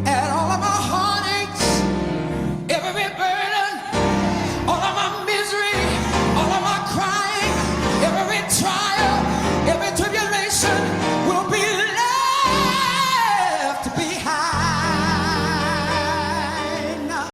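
Soul-gospel solo singing over instrumental accompaniment, with quick melismatic runs, a long high held note that slides down just past the middle, and a wide vibrato near the end. The music cuts off suddenly.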